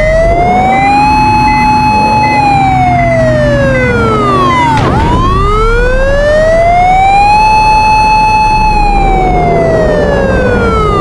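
Electronic siren from a bus's telolet horn system, wailing: the pitch rises slowly, holds, then falls, twice over.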